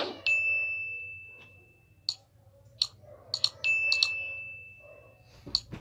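Two electronic chime tones, each one steady high pitch that fades away over about a second and a half, the second starting about halfway through. Computer mouse clicks sound in between and near the end.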